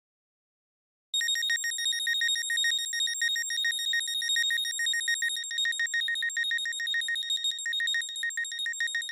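A high synth tone from the Arturia OP-Xa V software synthesizer: one steady pitch pulsing rapidly and evenly. It starts about a second in, after silence.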